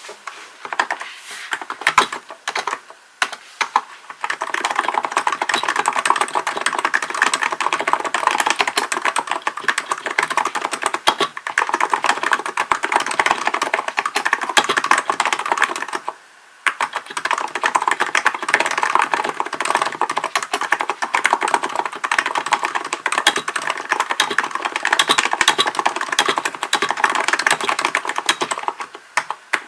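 Hansung GK898B capacitive (non-contact) keyboard being typed on fast and continuously. A few scattered keystrokes come first, then a steady stream of rapid key presses, a brief pause about halfway, and rapid typing again until just before the end.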